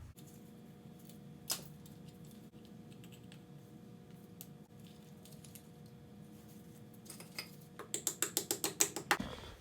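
Faint steady hum with a single sharp click early on, then a fast run of sharp clicks, about ten a second, for a couple of seconds near the end, from hand work on the engine.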